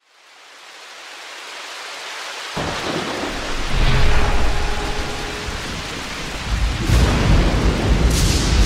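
Thunderstorm: a steady rain hiss fades in, then rolling thunder rumbles in about two and a half seconds in and swells again near the end.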